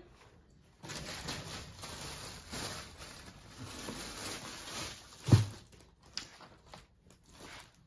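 Rustling of suit cloth being handled, with one dull thump about five seconds in, followed by a few faint rustles.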